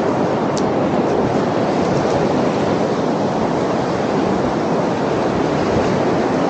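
Pacific Ocean surf breaking and washing up the beach, a steady, continuous rush of water.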